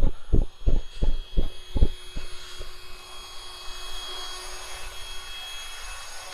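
Footsteps thudding about three times a second as a person walks through grass, stopping about two seconds in. A steady high-pitched whine with hiss follows.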